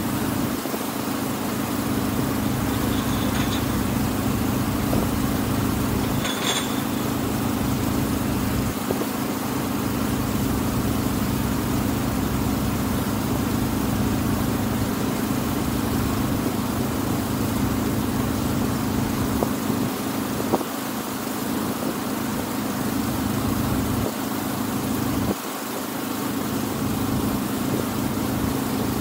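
Engine of the Tuula II wooden water bus running with a steady hum, heard from the deck. A brief high chirp sounds over it about six seconds in.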